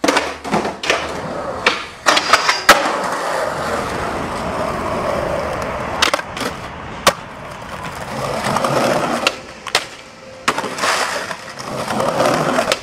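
Street skateboarding: wheels rolling on concrete, sharp tail pops and landing cracks, and the board grinding along a ledge, in several short takes. The sharpest cracks fall in the first few seconds and again around the middle.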